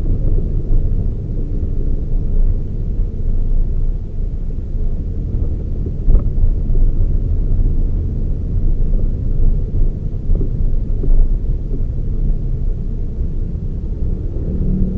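Toyota Raize compact SUV being driven: a steady low rumble of engine and road noise, with a single knock about six seconds in.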